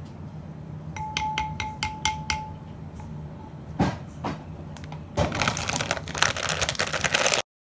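A spoon taps six times in quick succession against a glass bowl, which rings after each tap. Two knocks follow. Near the end a plastic packet crinkles loudly, and then the sound cuts off suddenly.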